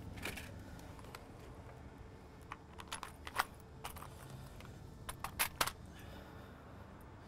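Small metal hand tools clinking and rattling in a plastic tool case as they are picked through: scattered sharp clicks, in two clusters around the middle and about two-thirds of the way through.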